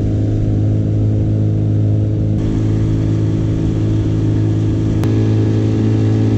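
Two-stroke Mariner outboard motor running steadily at cruising speed, its pitch holding constant as it drives a small boat along.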